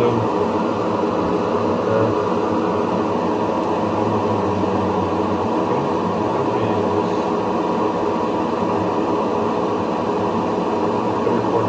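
Paint booth exhaust fan running steadily: a loud, even rush of air with a low hum.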